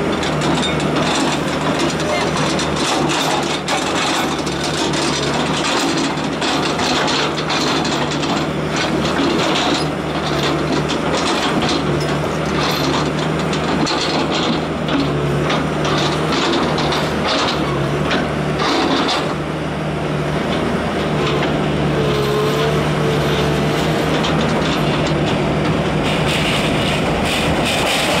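Indian Railways ALCo diesel locomotive chugging as it approaches hauling a passenger train, its engine a steady low throb. Near the end, wheels clatter on the rails as it comes close.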